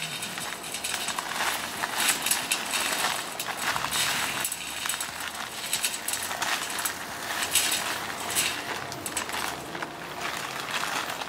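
Dry fast-setting concrete mix poured from its bag into a fence-post hole: a gritty, crackling hiss of sand and gravel sliding and landing, with many small irregular clicks.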